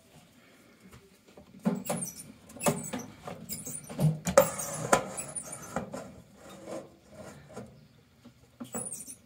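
A live feeder rat scrabbling inside a metal bowl, its claws scratching with irregular sharp knocks. The scrabbling is busiest from about two to five seconds in, then thins out.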